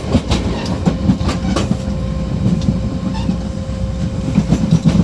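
The gangway between two cars of a moving diesel multiple unit train: a steady low rumble with scattered sharp clicks and rattles, a cluster of them in the first second and a half and more near the end.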